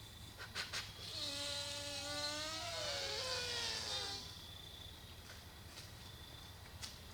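A passing motor vehicle's engine: a buzzy hum that builds up about a second in, holds for roughly three seconds, then drops in pitch and fades. Just before it come a couple of sharp clicks.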